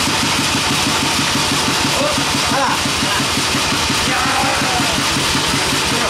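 Sawmill engine running steadily with an even chugging beat of about eight to nine pulses a second, over a constant hiss.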